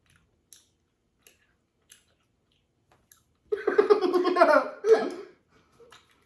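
Jelly beans being chewed, with small wet mouth clicks. About three and a half seconds in, a child bursts out laughing for nearly two seconds.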